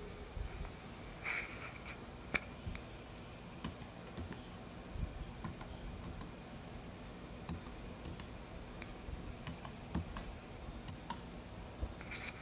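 Keys of an Apple Wireless Keyboard pressed one at a time, in scattered, irregular clicks: the Bluetooth pairing passcode being typed in.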